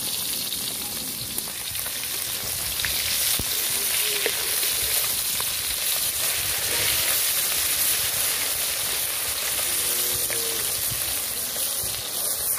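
Pieces of climbing perch (koi fish) sizzling steadily as they shallow-fry in hot oil in a metal wok. A metal spatula taps and scrapes against the pan now and then as it turns them.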